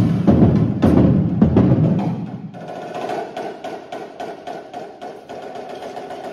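Drum corps percussion warming up: crash cymbals played with bass drums, heavy low hits for the first two seconds or so, then a quieter, steady run of lighter strokes about four a second.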